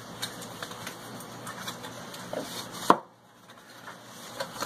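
Light tapping and handling sounds as butter is taken out of its cardboard box on the kitchen counter, with one sharp knock about three seconds in.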